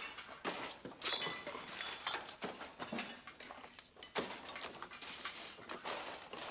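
Irregular clattering and clinking of metal tableware.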